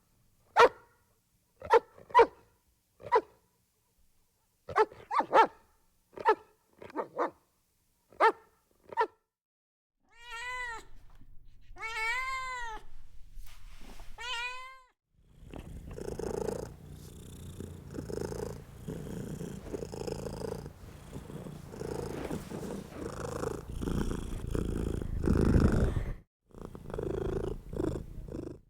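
A dog barking in short single barks for several seconds. Then a domestic cat meows four times in long rising-and-falling calls, followed by about ten seconds of steady close-up purring.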